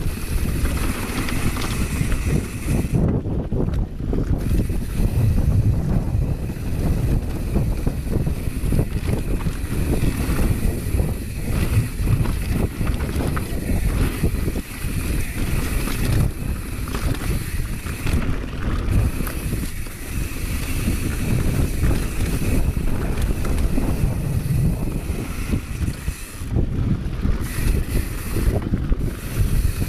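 Wind buffeting a GoPro's microphone during a fast mountain-bike descent on a dusty dirt trail. Tyres and the bike rattle over the rough ground underneath.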